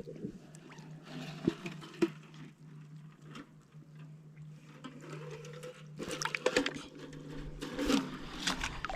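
Water sloshing and handling knocks over a steady low hum, with busier splashing and rustling in the last three seconds.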